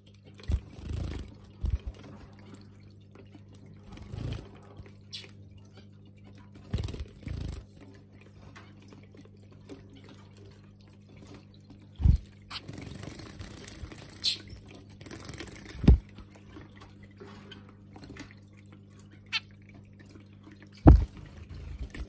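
Electric pet water fountain running, water streaming from its spout into the bowl over a steady low pump hum. Several sudden splashes break in as a zebra finch bathes in it.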